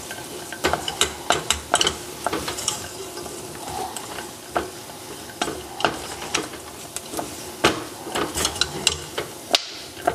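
Wooden spatula stirring almonds and hazelnuts through melting sugar in a stainless steel saucepan: frequent irregular clicks and scrapes of nuts and spatula against the pan over a steady sizzle as the sugar coating is re-melted into caramel.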